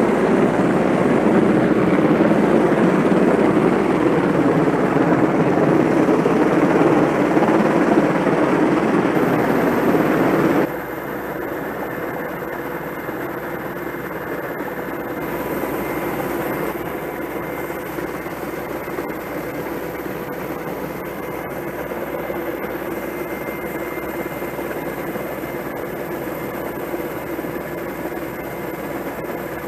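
Rescue helicopter hovering overhead during a winch hoist: loud rotor noise and wind. About ten seconds in it changes abruptly to the steadier, quieter hum heard inside the helicopter's cabin in flight, with a few faint steady tones.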